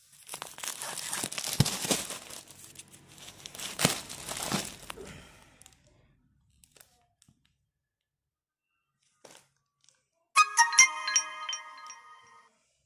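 Clear plastic wrapping on packed fabric bundles crinkling and crackling as it is handled, with sharp crackles, for about five seconds. Near the end comes a short, bright chime of several ringing tones lasting about two seconds.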